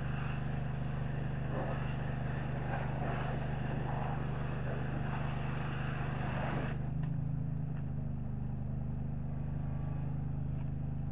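High-pressure washer spray blasting against a semi truck's rear wheels and frame over a steady engine drone. The spray cuts off suddenly about two-thirds of the way through, and the engine keeps running.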